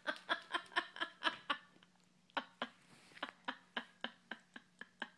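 A plastic bottle of valerian root supplements rattling as a cat grips and kicks at it: a quick run of short rattles about four a second, with a brief pause about two seconds in.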